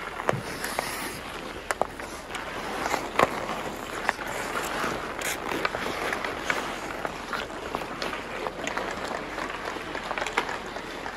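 Ice hockey skates scraping and carving on ice, with sticks clacking on the puck and ice in a scatter of sharp knocks, the loudest about three seconds in.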